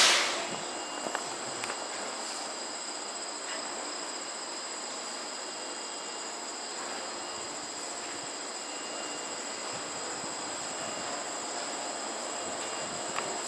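Steady high-pitched chirring of an evening insect chorus, crickets, holding even throughout. A brief rush of noise right at the start.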